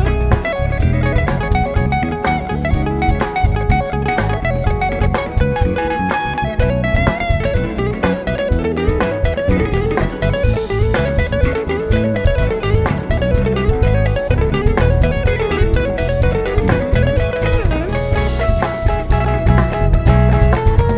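Live band playing an instrumental passage: a lead guitar line over bass and drum kit, with a quick back-and-forth run in the middle.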